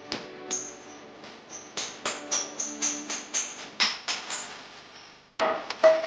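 Background music with a quick run of sharp percussion hits, about three or four a second. Near the end, two loud sharp knocks with a short ring rise above it.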